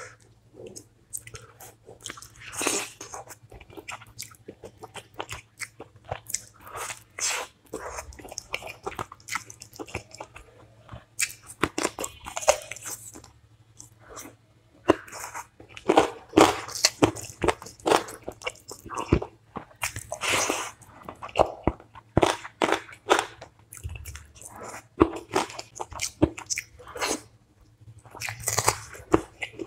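Close-miked eating of chicken curry with rice and dal: wet chewing and smacking with irregular crunchy bites.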